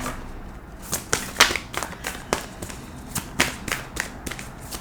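A deck of tarot cards being shuffled by hand, the cards slapping and tapping together in a run of irregular sharp clicks.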